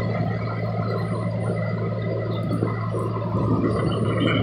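Heavy rain pouring down on a city street, a continuous splashing and gurgling of water, over a steady low hum. It swells a little near the end.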